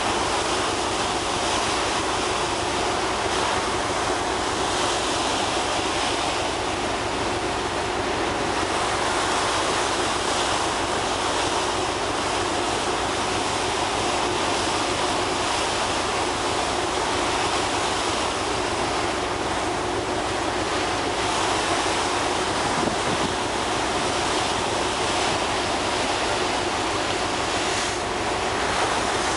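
Sea water rushing and churning along the side of a moving car ferry, a steady unbroken rush with a faint steady hum underneath.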